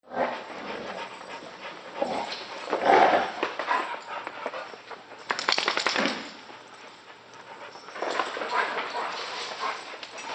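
Two dogs whining and grumbling at each other in play, with a quick flurry of sharp sounds about five seconds in as they lunge at each other.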